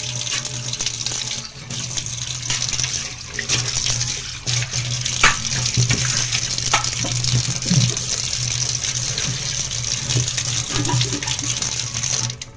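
Tap water running steadily into a stainless steel sink, rinsing off the cleaning paste. The flow stops suddenly near the end as the tap is shut off.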